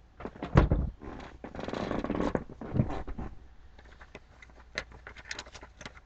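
Fireworks packages being handled: a loud bump about half a second in, a stretch of rustling and scraping, then light crinkling and clicking of packaging near the end.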